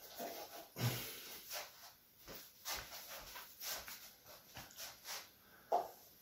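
Quiet, irregular soft puffs and rustles close to the microphone, about one a second, the loudest about a second in and again near the end: a person breathing and handling the camera.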